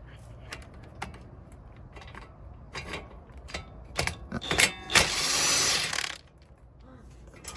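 Metal clinks as a socket is set on a bolt, then an impact wrench fires for about a second, about five seconds in, hammering the bolt loose.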